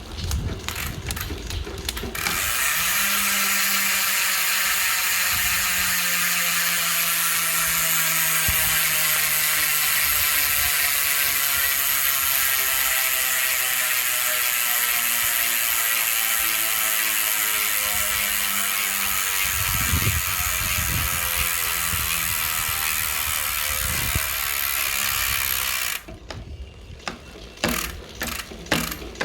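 Trail Mech bicycle hub freewheeling, its 60-engagement ratchet clicking. Separate clicks for the first couple of seconds, then the wheel spins fast and the clicks merge into a loud steady buzz that slowly drops in pitch as it coasts down. Near the end it breaks back into separate clicks.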